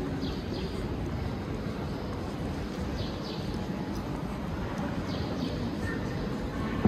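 Steady hum and rumble of a station platform beside a standing electric train. A small bird chirps about three times, each a quick pair of falling notes.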